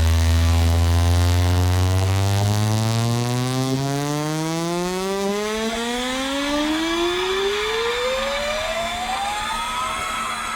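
Synthesized bass sweep test tone gliding steadily upward in pitch, from a deep bass note at the start to a high tone near the end, used to check a speaker's response across its range.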